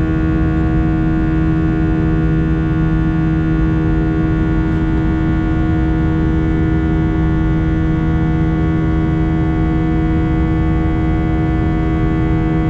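Jet airliner engines at climb power heard inside the passenger cabin: a loud steady drone with a low rumble and several steady humming tones over it.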